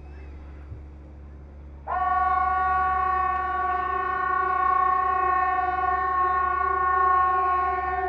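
Hesa Fredrik civil defense siren sounding during its routine test: a loud, steady blast of several tones at once that starts abruptly about two seconds in and holds at one pitch.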